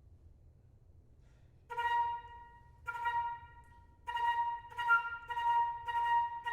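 French horn playing a hunting-call figure on one repeated note, starting about a second and a half in: three separate notes, then a quicker run of repeated notes.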